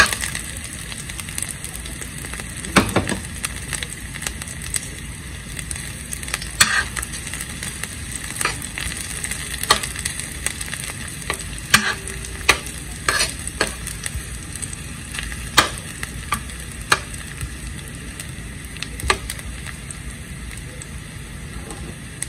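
Sliced garlic sizzling steadily in a little hot oil in a stainless steel pan, with scattered sharp clicks and scrapes as a slotted spoon stirs it against the pan.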